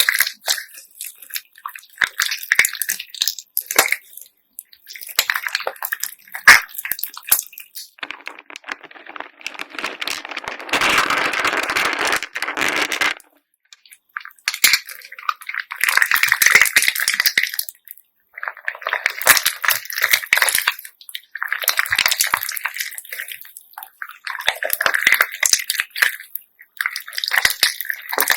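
Handmade slime mixed with beads being squished and kneaded by hand, giving bursts of crackling, clicking and popping a second or two long with short pauses between, and one longer, denser stretch partway through.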